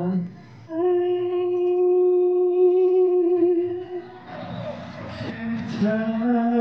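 Live male singing into handheld microphones: a long, steady sung note held for about three seconds, then a short noisy stretch, and the singing picks up again near the end.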